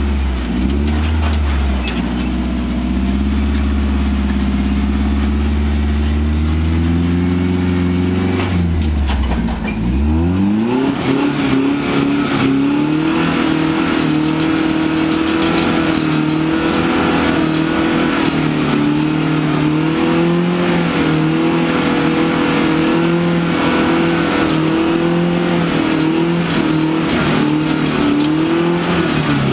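Off-road truck engine running and revving. It holds steady at first, dips about nine seconds in, then climbs again and is held at higher revs with the pitch wavering up and down. The revs fall away at the very end.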